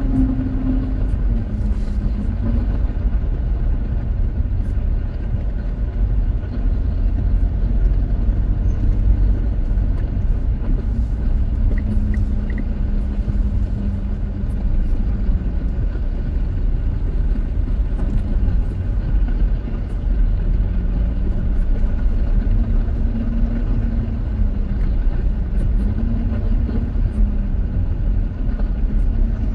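Steady low rumble of a car's engine and tyres, heard from inside the cabin while creeping in slow traffic, with the engine note drifting gently up and down.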